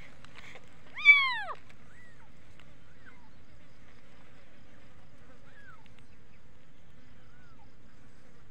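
Young kitten meowing in distress: one loud, high cry about a second in that drops in pitch at its end, then several faint short mews. A steady low buzz runs underneath.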